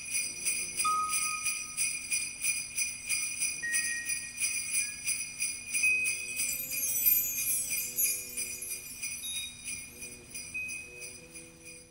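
Sleigh bells shaken in a steady rhythm, about four shakes a second, over faint sustained notes, with a high descending shimmer about seven seconds in; the bells fade out near the end.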